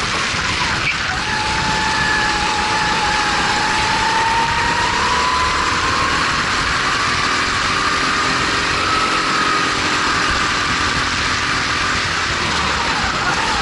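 Honda GX270 single-cylinder four-stroke engine of a Formula 270 race kart at racing speed, heard onboard over a steady rush of wind noise. Its pitch drops sharply about a second in as the kart slows for a corner, climbs slowly over the next several seconds as it accelerates, and drops again near the end.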